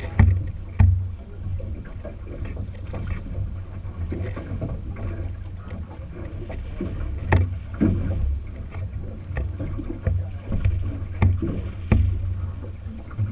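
Drift boat being rowed on a river: oar strokes and splashes, with a few sharp knocks, over a steady low rumble.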